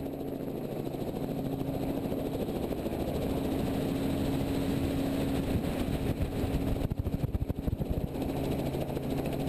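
Robinson R44 helicopter's piston engine and rotor running at lift-off power, a steady hum with two held low tones that builds over the first couple of seconds. About seven seconds in, an irregular low fluttering rumble takes over for about a second.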